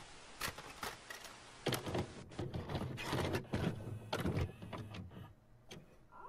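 A VCR's tape mechanism clicking, clunking and whirring as a cassette loads, over a hiss, going quieter near the end.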